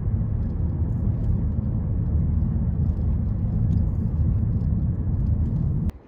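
Steady low rumble of a moving vehicle, cutting off suddenly near the end.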